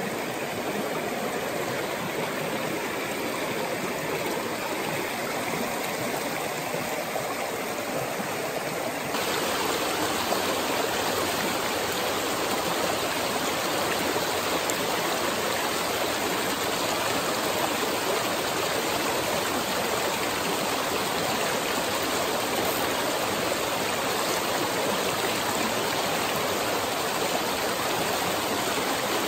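A small rocky mountain stream rushing and splashing over stones and a small cascade, a steady rush of water. About nine seconds in it becomes louder and brighter.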